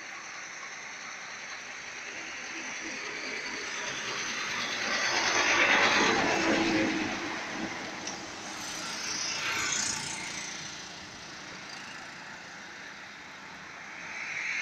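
Road traffic: a large truck drives past close by, its engine and tyre noise swelling to a loud peak about six seconds in and then fading as it moves away. A smaller swell of a second passing vehicle follows a few seconds later.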